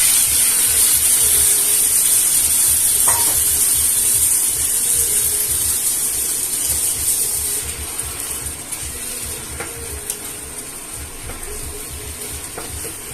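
Potato and pea masala sizzling in a hot pan just after a little water is added, a loud hiss that eases off about eight seconds in, with a few light clicks as it is stirred.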